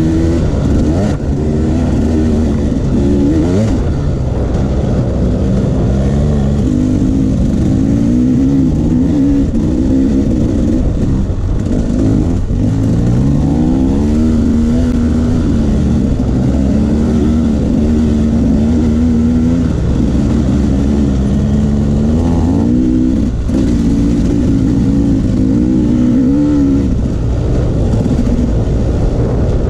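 Dirt bike engine being ridden on a trail, its pitch climbing and dropping again and again with throttle and gear changes, now and then holding steady for a few seconds.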